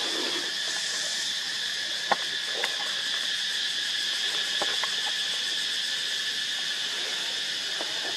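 Steady, dense chorus of insects buzzing at a high pitch, with a few short sharp crackles, the first about two seconds in.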